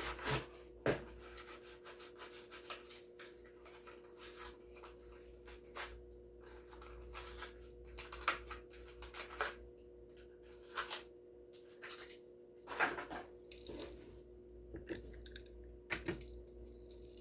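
Small die-cast toy car being handled and set on a motorized display turntable: scattered rubbing and clicking over a steady faint two-note motor hum.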